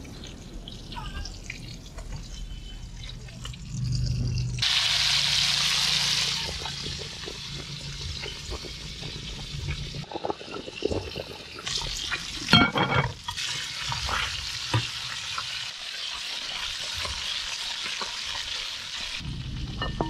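Fish frying in hot oil: a steady sizzle that jumps up sharply about five seconds in and carries on, with a few knocks and clatters in the middle, then drops off near the end.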